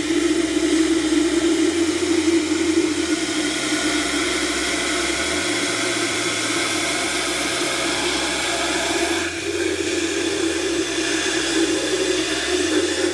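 Water running into the plastic tank of a 4-gallon backpack sprayer being filled, a steady rushing hiss.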